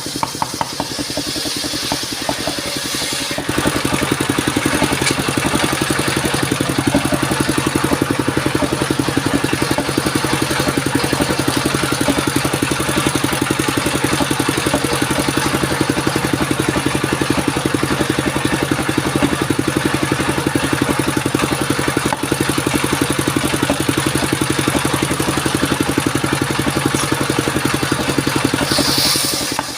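Engine of an engine-driven circular saw machine for cutting sengon wood, running steadily. It gets louder about three and a half seconds in and eases back just before the end.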